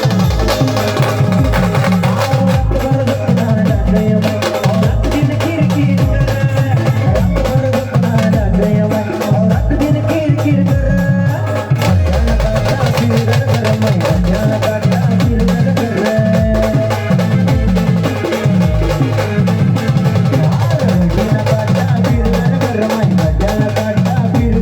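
Brass band playing an instrumental stretch of a Marathi folk song: a steady heavy drum beat, about two strokes a second, under a held melody line.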